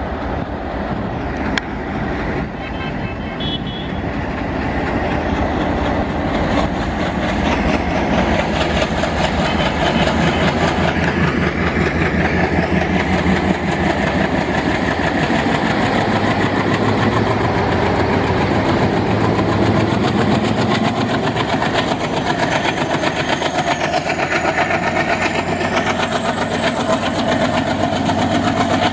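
The V16 four-stroke ALCO DL560C diesel engine of an Indian Railways WDG3A locomotive chugging hard under load as it hauls a passenger train past. Its fast, even exhaust beat grows louder over the first several seconds as it approaches, then holds steady as the locomotive and coaches roll by.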